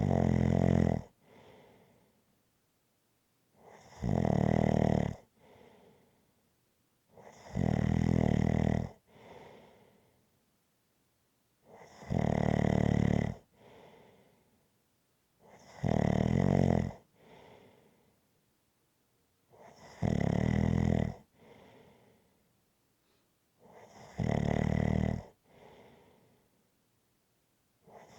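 Rhythmic snoring: a loud, buzzing snore of a bit over a second comes about every four seconds, each followed by a softer, shorter breath.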